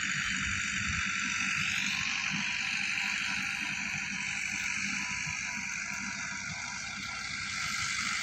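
Massey Ferguson tractors' diesel engines running at a distance as they drag levelling implements across the field: a steady low engine rumble under a steady high-pitched buzz.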